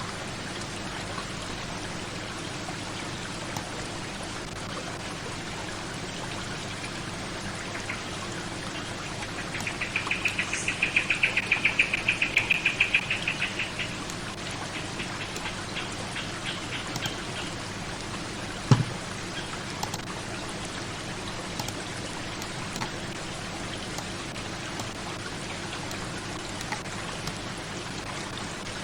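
Steady, even noise like rain or running water. About a third of the way in, a rapid high-pitched trill swells and fades over a few seconds. A single sharp knock comes about two-thirds through.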